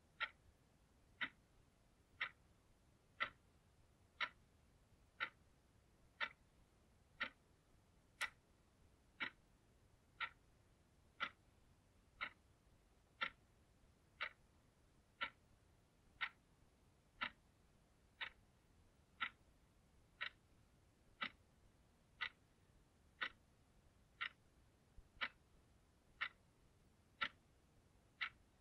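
Analog alarm clock ticking steadily, one sharp tick a second.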